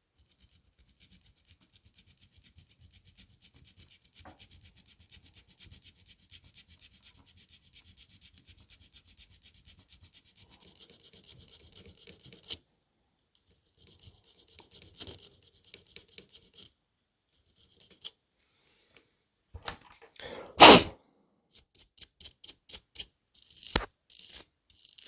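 Fine, rapid scratching at a tablet's small USB-C charge port, faint and steady for about twelve seconds, then again briefly after a pause. Near the end comes one loud burst of noise, then a run of sharp clicks.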